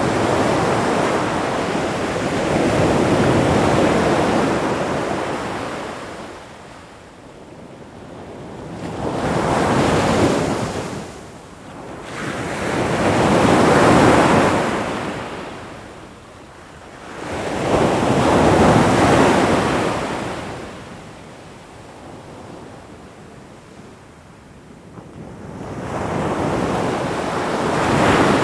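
Ocean waves washing onto a shore, the hiss of surf rising and falling in slow surges every four to nine seconds.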